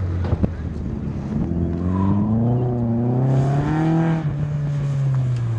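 Nissan 240SX engine pulling hard during an autocross run. Its pitch climbs for about two and a half seconds, then eases off about four seconds in. A short sharp knock comes near the start.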